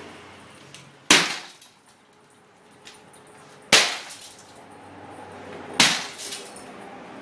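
Heavy hammer striking film-backed laminated glass three times, each blow a sharp crack followed by brief crackling of the fractured glass. The security film on the back keeps the pane from being broken through.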